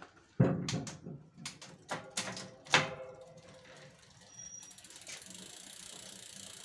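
A touring bike's rear wheel is spun by hand on its kickstand. Several sharp clacks and rattles come from the crank and chain in the first three seconds. Then the rear hub's freewheel ratchet ticks rapidly and steadily as the wheel coasts.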